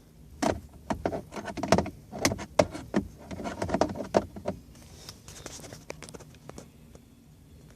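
Sharp clicks and knocks of a hand striking the 2013 Chevy Sonic's automatic shift lever and knob to free its stuck park-release button, the shift interlock button that stays pressed in and keeps the key from coming out. The knocking comes in a dense run over about four seconds and gives way to faint ticks.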